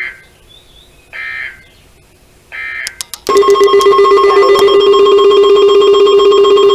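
Emergency alert data header: three short, harsh, buzzing bursts of digital data. A few clicks follow, then a loud, steady electronic alert tone begins about three seconds in and holds.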